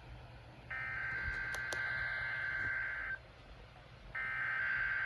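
NOAA Weather Radio SAME header for a Required Weekly Test: digital data bursts of a two-tone warble sent over the radio. One burst lasts about two and a half seconds, then after about a second of silence the next repeat begins.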